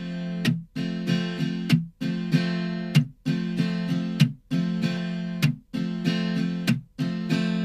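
Background music of a strummed acoustic guitar: a chord struck and held about every second and a quarter, each cut short by a brief gap, the last one left ringing near the end.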